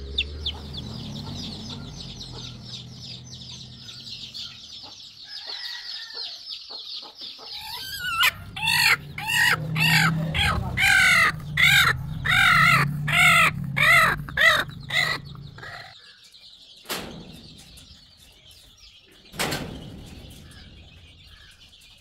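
Chicks peeping rapidly and continuously, then a chicken calling loudly over and over, about two calls a second for some seven seconds. Faint chick peeping follows, broken by two sharp knocks.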